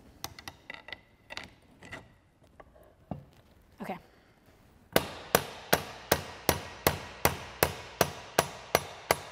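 Steel hammer blows in an even rhythm, about three a second, driving a pivot pin into a Ford 3000 tractor's hydraulic top lid, each strike ringing briefly. Light metallic clinks and taps come first, and the steady hammering starts about halfway through.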